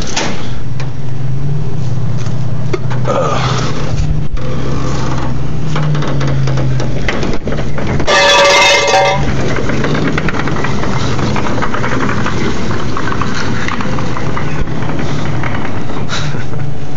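Half-track's White engine running steadily as the vehicle rolls out along the street. About halfway through, a loud pitched tone lasts about a second.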